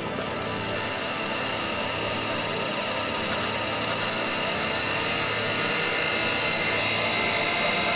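A steady, dense rushing noise with several high whining tones over it, like a running engine, growing gradually louder.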